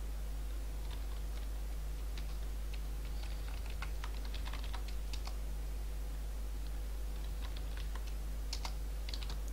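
Computer keyboard typing in irregular bursts of keystrokes, with a steady low hum underneath.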